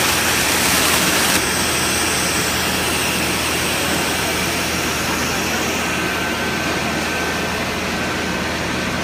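Screw air compressor running with a steady hum and rush of air. A sharper hiss of air escaping at a pipe on the cabinet, where a plastic sheet is held in the blast, drops away abruptly about a second and a half in.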